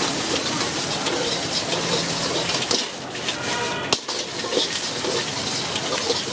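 Egg sizzling in a hot wok as a steel ladle stirs and scrapes through it, a steady frying hiss with a sharp knock about four seconds in.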